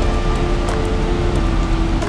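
Background music, a slow melody of held notes, over a steady rushing noise.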